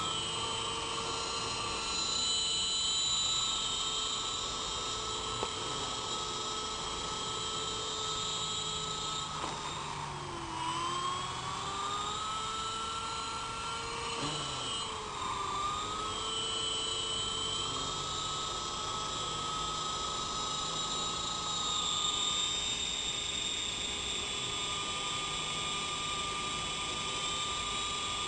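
Blade CP Pro electric RC helicopter running: a steady high motor and gear whine over the rotor's hum, its pitch dipping and recovering twice, about ten and fifteen seconds in.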